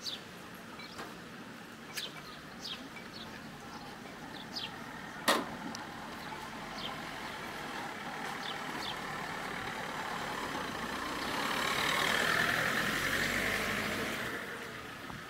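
A motor vehicle passing: its noise builds slowly, peaks about twelve seconds in, then fades. Small birds chirp briefly throughout, and there is one sharp knock about five seconds in.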